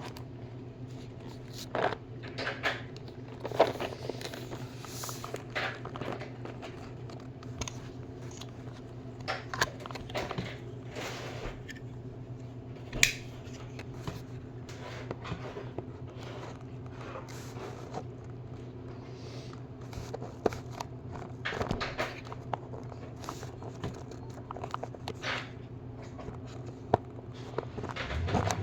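Hands unpacking new hand tools from their packaging: scattered clicks, taps and plastic crinkling over a steady low hum.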